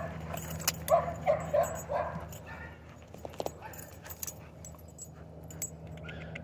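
Dog making short vocal sounds during a tug-of-war on a rope toy, four in quick succession about a second in. Later there are a few light clicks and clinks.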